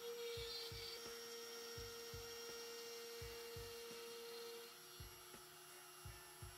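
Faint steady whine of a Genmitsu 710 W router's motor spinning its bit while the CNC machine engraves a pine board. The whine drops in pitch about two-thirds through. Soft low thumps come in pairs about every second and a half.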